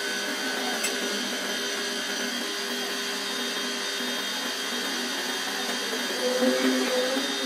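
Spray gun hissing as it lays finish on a wooden slab, over the steady whine of the small electric motor that feeds it air. It gets briefly louder, with a wavering tone, about six seconds in.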